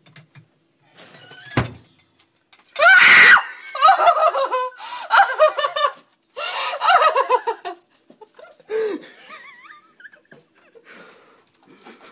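A sharp knock about a second and a half in, then a young woman screams loudly in fright and breaks into bursts of shrieking laughter that trail off.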